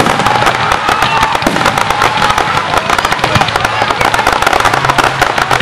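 Aerial fireworks going off: a loud, dense crackle of many rapid pops and small bangs that does not let up.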